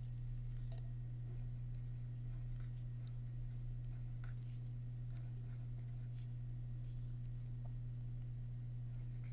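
Pen writing on paper: faint scratchy handwriting strokes, over a steady low hum.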